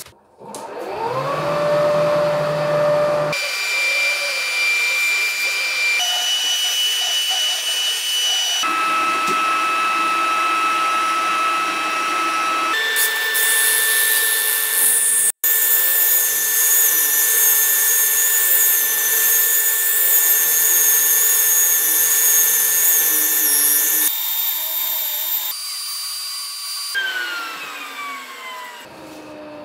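A shop vacuum's motor spins up with a rising whine. Then a disc power sander runs with the vacuum hose extracting its dust while it sands the fiberglass hull's gelcoat: steady motor tones with a loud gritty hiss. Near the end a motor winds down with a falling whine.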